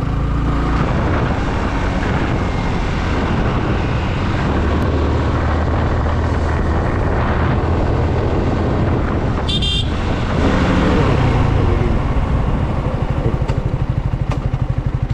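Yamaha R15 V3 motorcycle's single-cylinder engine running as the bike is ridden, with a short horn toot about ten seconds in. Near the end the engine note turns to an even pulsing, as at idle.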